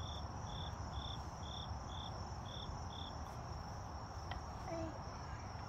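Crickets chirping outdoors: one steady high trill, with a second cricket's short chirps repeating about twice a second until they stop about three seconds in.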